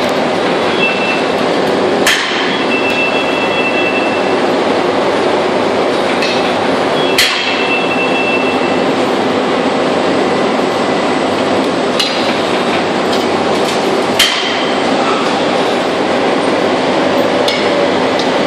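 Steady loud mechanical din of a metal-casting line, broken by sharp metallic clanks about four times, a few seconds apart, as steel hand tools strike the metal moulds; twice a brief high squeal rings out.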